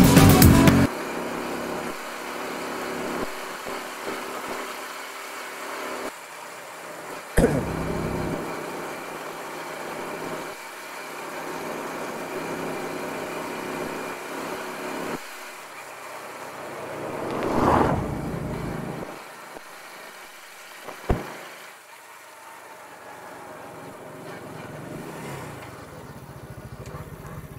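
Motorcycle running on the move, a steady engine and road sound. A sharp knock comes about seven seconds in, a louder sound rises and fades around eighteen seconds, and a short sharp click follows a few seconds later.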